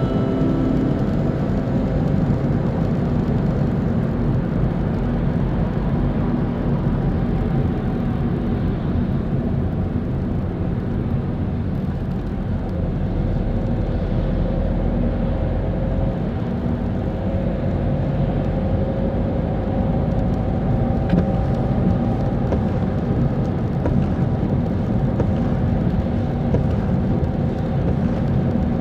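Car travelling at motorway speed on a wet road in the rain: steady road and engine noise with a faint hum.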